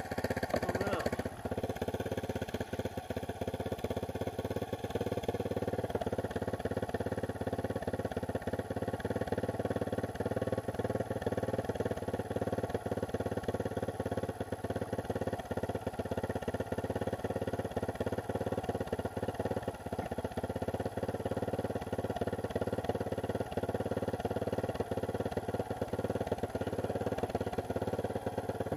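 Dirt bike engine running steadily at low speed while riding a sandy trail, heard from the rider's helmet.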